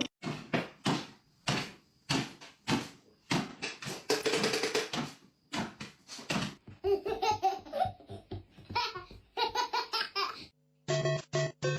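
Laughter in short, repeated bursts, with a change to a different sound with a steady low hum in the last second.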